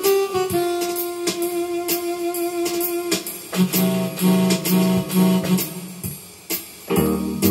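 Electronic keyboard being played over a steady drum beat. A single note is held for about three seconds, then low chords come in. The music dips briefly near the end before picking up again.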